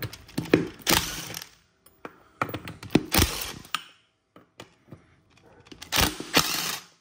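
Makita cordless impact wrench with a 3/4-inch socket running in three short bursts of about a second each, spinning a golf cart's lug nuts off. Clicks of socket and nuts come between the bursts.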